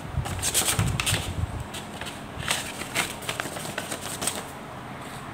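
Paper rustling as a hand moves and turns a loose sheet over a workbook page. It comes in two spells of crackly strokes: one in the first second and a half, another midway.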